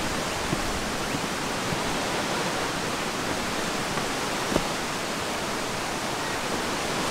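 A steady, even rushing noise with no distinct events, broken only by one faint knock about four and a half seconds in.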